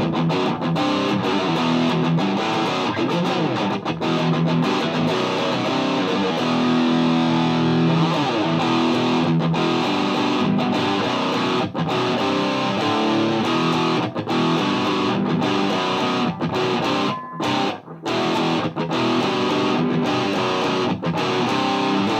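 Distorted electric guitar playing chords and riffs: a Gibson Les Paul through a Mesa Boogie Dual Rectifier tube amp into a Marshall 1960A 4x12 cab. The presence is turned up to tighten the bottom end. The playing breaks off briefly a few times about 17 seconds in.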